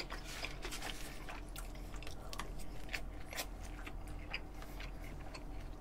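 A person chewing a mouthful of beef and rice close to the microphone: soft, wet mouth clicks and smacks coming irregularly, several a second.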